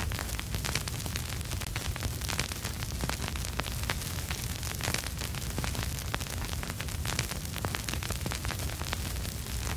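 Vinyl record surface noise: dense, irregular crackle and pops over a steady hiss and low rumble.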